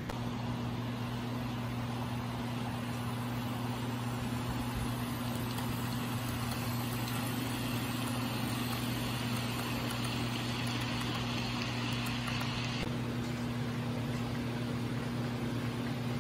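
HO scale model diesel locomotives running on the layout, with a steady low engine-like hum. A higher hiss joins partway through and cuts off suddenly near the end.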